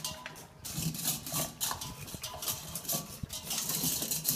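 Dogs eating from their bowls: a quick, irregular series of crunching and chewing sounds.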